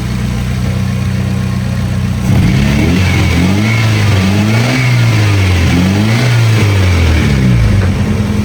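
Nissan 240SX's 2.4-litre four-cylinder engine idling, then revved up and down several times from about two seconds in, dropping back to idle near the end. It is running on a known-good fuel pump that bypasses the car's own pump, and is settling well with no issues.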